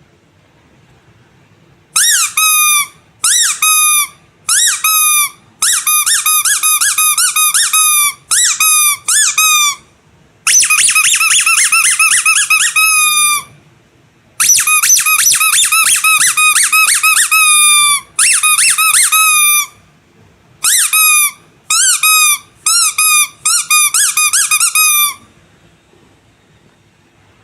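Squeaky rubber animal toys squeezed again and again: high squeaks that dip in pitch as each one ends. They start about two seconds in, come singly and in short runs, then in long rapid trains in the middle, and stop a couple of seconds before the end.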